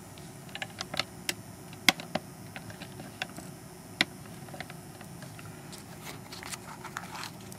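Scattered light clicks and taps of handling at a workbench as a small vise holding a chip is repositioned, with two sharper clicks about two and four seconds in. A faint steady hum runs underneath.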